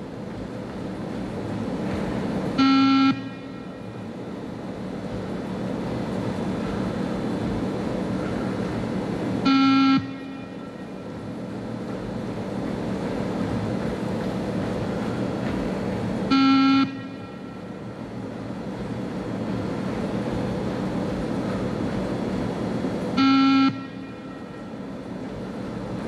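Beep-test recording sounding four short electronic beeps, each about half a second long and roughly seven seconds apart, each marking the moment the runner must reach the next 20 m line. Steady background noise between the beeps.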